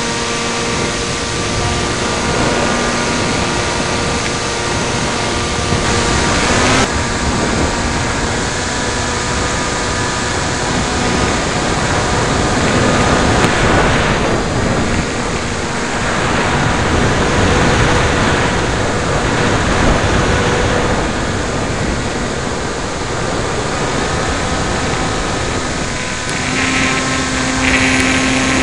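Heavy wind buffeting the microphone of a camera on an EPP-FPV foam RC plane, over the steady whine of its electric motor and propeller, whose pitch shifts a little now and then with the throttle.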